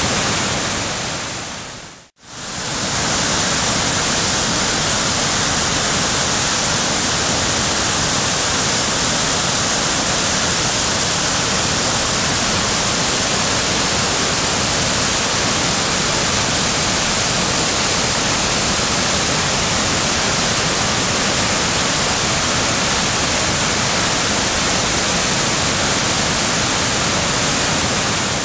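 Steady rushing of a waterfall, an even hiss of falling water. It fades out to silence for a moment about two seconds in and comes straight back.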